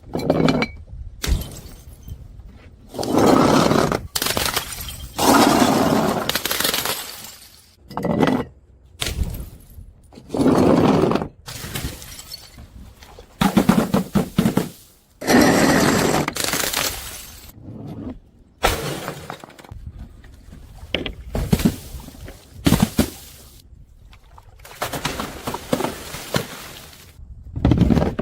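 Glass bottles shattering one after another, about a dozen separate smashes, each with a tinkling tail of breaking glass. Abrupt cuts fall between them.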